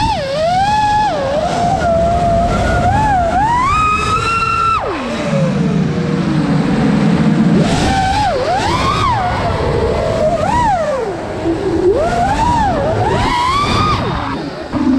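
Brushless motors and propellers of a 5-inch FPV racing quadcopter whining, the pitch swooping up and down with each throttle change. About five seconds in the whine drops away to a low rumble for a couple of seconds, then climbs and swoops again.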